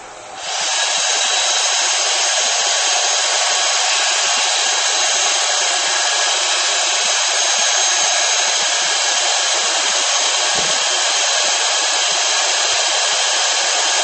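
Hot-air blower switched on about half a second in and blowing steadily, warming the frosted end of a liquid-nitrogen supply hose to thaw it loose from its frozen fitting.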